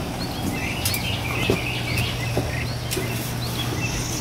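Outdoor ambience of birds chirping again and again, over a steady low hum, with a few faint knocks.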